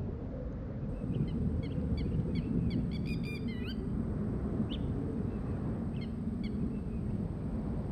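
Birds calling over a steady low rumble of wind: a quick flurry of short chirps between about one and four seconds in, then scattered single calls.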